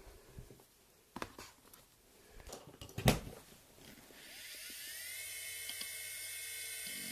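A few knocks and clicks, the loudest about three seconds in, then a hard drive's spindle motor spins up with a rising whine that settles into a steady high whine.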